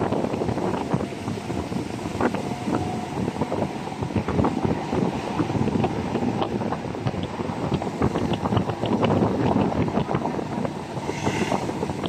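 Wind buffeting the microphone on the roof of a moving jeepney, over the steady noise of the jeepney's engine and the road, with many small knocks and rattles from the ride.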